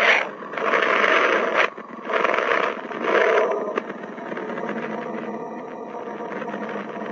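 Space sonification presented as the sound of the planet Mercury: its magnetic-field data converted into audio. A rushing noise swells and falls in three or four surges over the first four seconds, then settles into a steadier, softer hiss.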